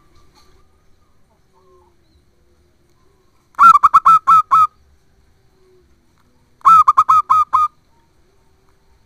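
Zebra dove (perkutut) song: two loud bursts of about five quick, clipped cooing notes, about three seconds apart.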